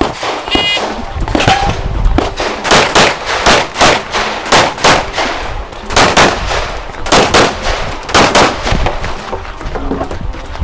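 A shot timer's start beep, then a compensated Open-class Glock 17 pistol firing a fast string of shots, mostly in quick pairs (double taps) with short gaps between pairs.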